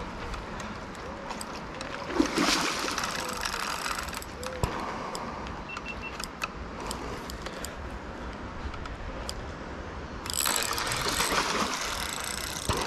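Fishing reel clicking and ratcheting as a hooked catfish is played. There are two louder stretches of noise, about two seconds in and again near the end.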